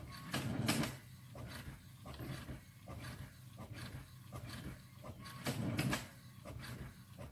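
Brother MFC-J6720DW inkjet printer printing a photo: a quick repeating rhythm of short sweeps, a few a second, over a steady low hum, with two louder, longer sweeps about half a second in and again near six seconds.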